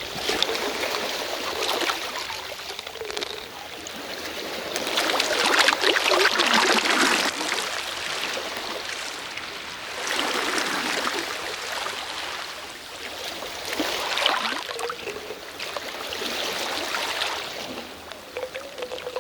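Sea waves washing onto a shore, the rush of water swelling and falling back about every four to five seconds.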